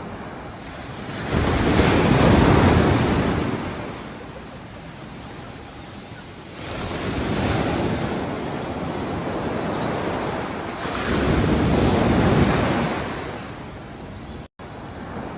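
Ocean waves breaking and washing in three surges, each building over a second or so and then fading. The sound drops out completely for a split second near the end.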